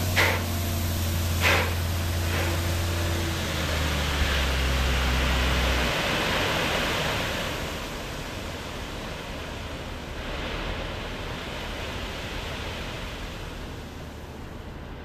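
A heavy truck's diesel engine running, with two short air hisses near the start. The engine sound cuts off about six seconds in, leaving a steady rushing noise.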